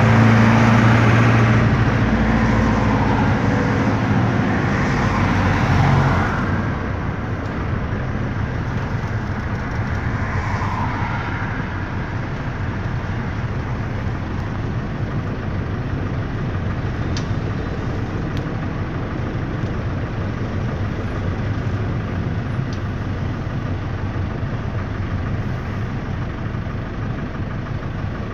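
Air-cooled Deutz F4L912 four-cylinder diesel of an Otokar M-2000 minibus, heard from inside the cabin while driving, very noisy. It runs loud for the first six seconds, then drops to a quieter, steady running noise.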